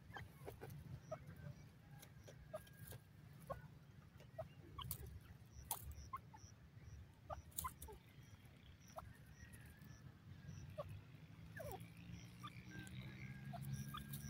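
Faint outdoor bird ambience: scattered short high chirps and clicks over a low rumble, with a faint high tick repeating about twice a second. No full, loud francolin call is heard.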